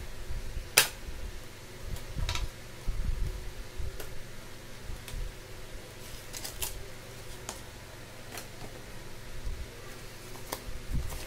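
Hands handling and opening a Bluetooth speaker's retail packaging: scattered clicks and rustles, with the sharpest click about a second in and a cluster of clicks around the middle, over a faint steady hum.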